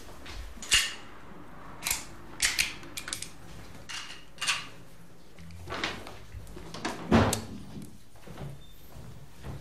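Objects being handled in a small room: a scattered series of sharp clicks and knocks, the loudest about a second in and again about seven seconds in.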